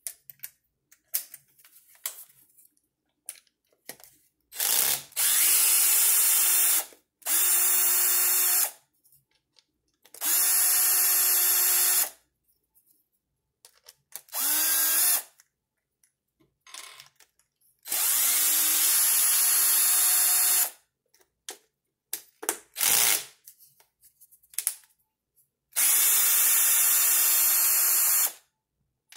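Cordless power driver backing out screws: six runs of one to three seconds each, every one spinning up quickly to a steady whir, with small clicks of handling between the runs.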